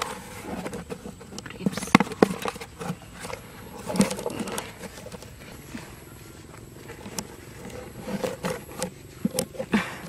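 Hands handling a cardboard-lidded pit trap and grabbing the trapped bird inside: scattered knocks, scrapes and rustles of cardboard and dirt, loudest about two and four seconds in.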